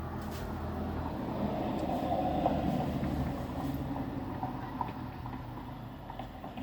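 A weird siren-like sound: a steady drone over a low rumble, swelling to its loudest about two to three seconds in and then slowly fading.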